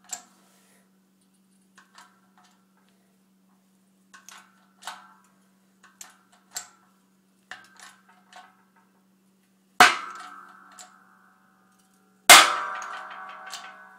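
Sheet-steel AK-47 receiver flat being folded in a jig by a hydraulic press: light metallic ticks and creaks, then two loud sharp bangs about two and a half seconds apart as the steel gives way, each ringing on afterwards. A steady low hum runs underneath.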